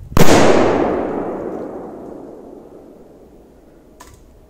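A large Kometa 'Achtung' firecracker going off under a disposable plastic bowl: one sharp bang a fraction of a second in, its echo fading away over about three seconds.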